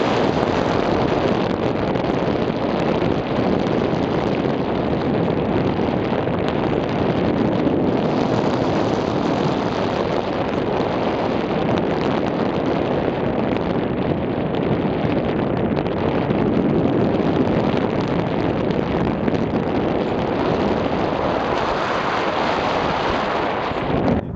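Steady rush of wind buffeting a camera microphone, from the airflow of a tandem paraglider in flight.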